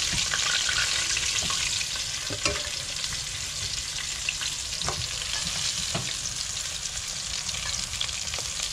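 Pieces of floured red snapper sizzling steadily as they fry in hot oil, with a few light knocks scattered through.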